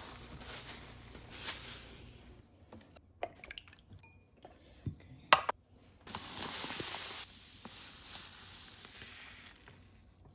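Kitchen work sounds while baking: scattered clinks and knocks of glassware and dishes, one sharp loud click about five seconds in, and a short burst of hissing noise lasting about a second shortly after.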